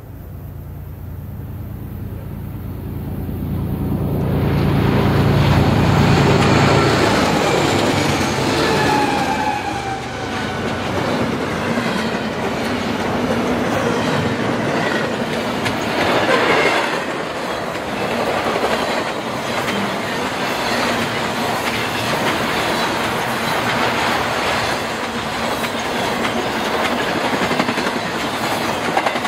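BNSF freight train passing close by. The diesel locomotives' engines rumble loudest about five seconds in as they go past. Then the long string of double-stack intermodal cars rolls by with a steady clatter of wheels over the rail joints and occasional faint wheel squeal.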